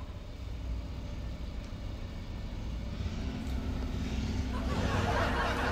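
Low steady rumble of background noise. A faint steady hum joins about three seconds in, and a soft hiss swells near the end.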